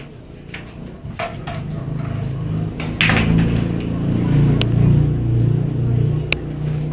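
Pool shot: the cue strikes the ball about three seconds in, then sharp clicks of pool balls colliding about a second and a half later and again near the end, over a low, steady background din.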